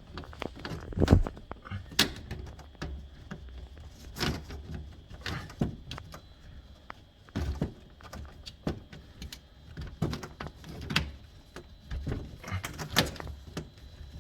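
Irregular knocks, clicks and rubbing of a dishwasher drain hose connector and its nut being handled and fitted onto a kitchen sink trap, with a sharper knock about a second in.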